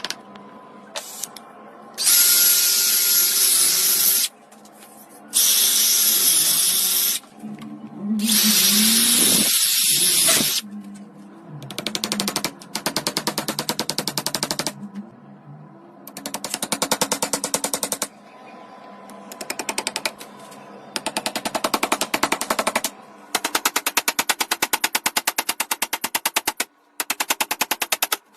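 Hand-held power tool work on a hammer repair: a drill runs in three bursts of two or three seconds each, slowing briefly near the end of the third. From about twelve seconds in come several bursts of very rapid, even clattering impacts.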